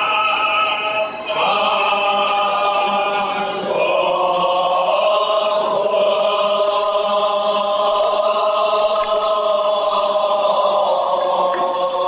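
Unaccompanied voices chanting a Kashmiri marsiya elegy in long, drawn-out notes. The pitch shifts about a second in, then one note is held for about seven seconds from about four seconds in.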